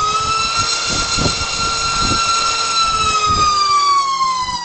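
HGLRC Aeolus 2306.5 2550KV brushless motor spinning a 5.1-inch three-blade propeller on a thrust stand, throttle ramped to full and back down. Its high whine rises in pitch during the first second, holds at full throttle, then falls away over the last second and a half.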